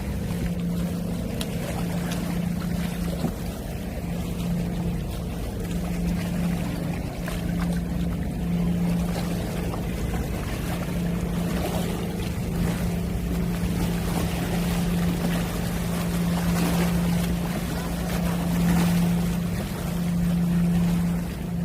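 A boat engine hums steadily at one low pitch over the wash of water and waves, and the wash swells a little now and then.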